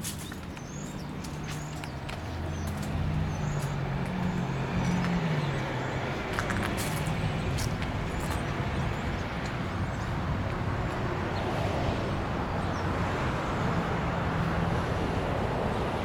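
A motor vehicle's engine humming, dipping in pitch about five seconds in, over a rising rush of outdoor noise. Small birds chirp in the first few seconds.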